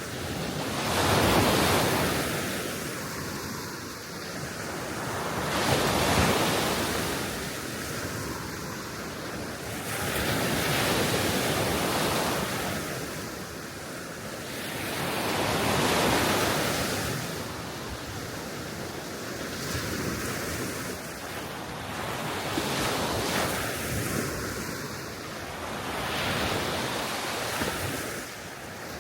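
Small Baltic Sea waves washing ashore, the surf swelling and ebbing every few seconds, with wind buffeting the microphone.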